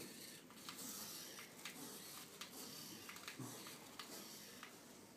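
Quiet room with faint hiss and a scatter of light, irregular clicks.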